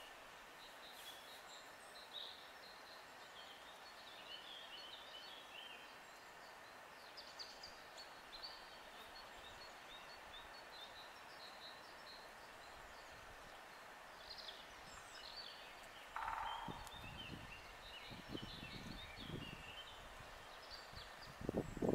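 Songbirds chirping in woodland, many short calls over a steady background hiss. In the last few seconds wind buffets the microphone with low rumbles, loudest near the end.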